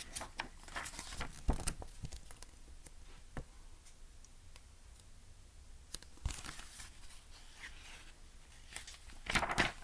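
Pages of a picture book being turned and the book handled: scattered paper rustles and light taps, with a longer rustle about six seconds in and the loudest one near the end.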